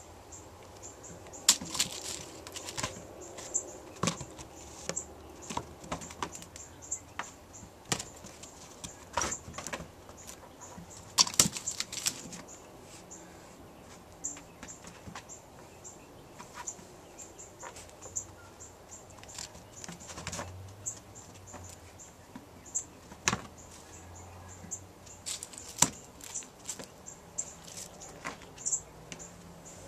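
Irregular taps, scuffs and rustles of a kitten pouncing and scrabbling while playing with a string. The clicks come in uneven clusters, loudest about a second and a half in and again around eleven seconds.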